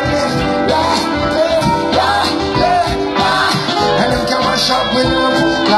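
Live reggae band playing, with singing over a deep bass line and a steady drum beat of about two hits a second.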